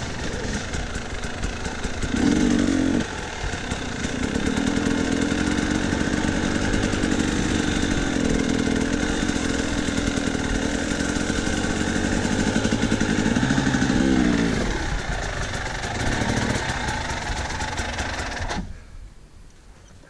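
KTM 300 two-stroke dirt bike engine running at steady light throttle, revving briefly about two seconds in. It eases off to low revs after about fourteen seconds and cuts off abruptly near the end as the engine is shut down.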